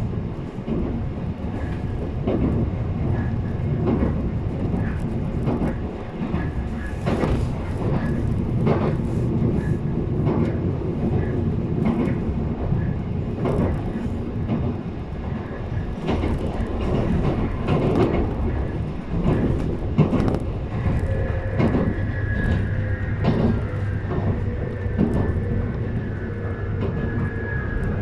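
Running noise heard inside a JR East 719 series electric train car: a steady rumble with frequent clicks and knocks from the wheels on the track. From about three-quarters of the way through, a whining tone slowly falls in pitch. This unit is labelled an 'abnormal-noise car' (異音車).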